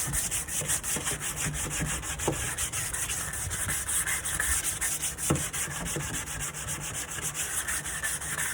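Sandpaper being rubbed by hand over the wooden surface of a nightstand in quick, even back-and-forth strokes, a continuous rhythmic scratching hiss.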